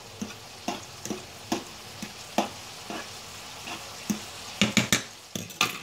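A utensil knocking against a pot as ramen noodles are stirred, about two knocks a second, with a quick run of sharper knocks near the end, over the steady sizzle of chicken frying in a pan.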